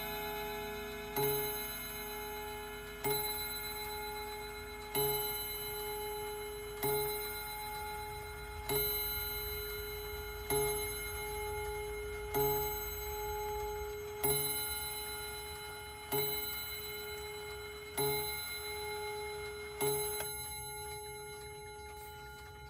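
Colonial wall clock striking twelve o'clock: eleven single slow strokes about two seconds apart, each ringing on and fading before the next. The last stroke comes about twenty seconds in.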